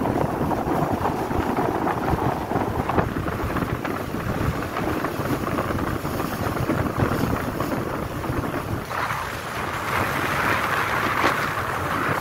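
Wind buffeting the microphone and water rushing past a speedboat running at speed on a river, a steady rough hiss that grows brighter about three quarters of the way through.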